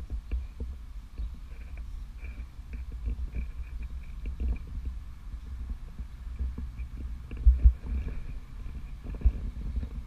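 Low rumbling wind and handling noise on a handheld camera's microphone outdoors, with irregular thumps. There are two heavier thumps about two thirds of the way in and another near the end.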